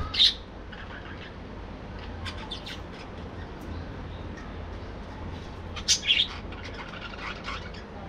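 A flock of budgerigars chirping and squawking: scattered short chirps, with a louder sharp call right at the start and another burst of calls about six seconds in.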